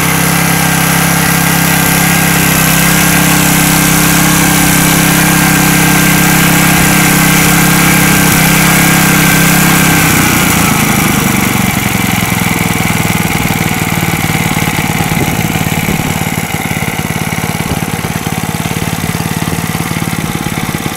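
Robin EY15B single-cylinder air-cooled four-stroke engine running steadily at speed, then throttled down about ten seconds in to a lower, rougher idle. Its running noise is somewhat loud, which the seller puts down to a somewhat worn engine.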